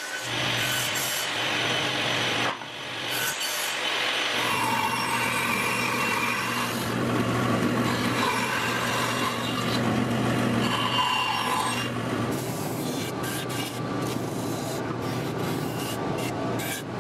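Glued-up plywood brackets being trimmed flush on shop machines in turn. First a table saw cuts through the stacked plywood for about two seconds and stops sharply. Then a bandsaw cuts through the layers, and near the end a belt sander grinds the edges in short, repeated strokes, over a steady motor hum.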